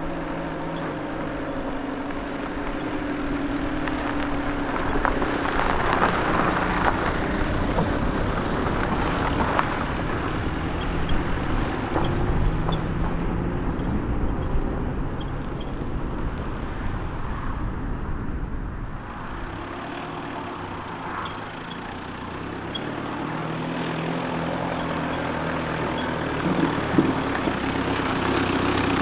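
2000 Renault Kangoo's 1.9-litre diesel engine running as the van drives along a dirt track, its pitch rising and falling. It is loudest as the van passes close about six seconds in, fades as the van moves off, and grows louder again as it comes back and pulls up near the end.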